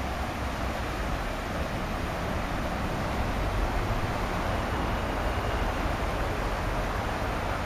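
Steady rushing of high floodwater pouring over a submerged low-head dam on a creek, an even noise with a low rumble underneath.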